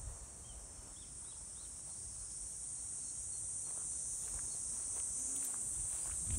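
Insects chirring steadily in the grass as a continuous high-pitched hiss, over a low rumble of wind on the microphone that slowly grows louder.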